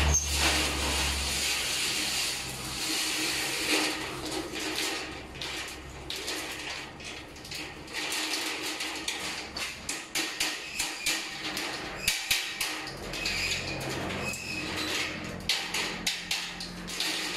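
Corrugated steel slats of a manual roll-up door rattling and scraping as the curtain is drawn down off its roll. In the second half come irregular metallic clanks.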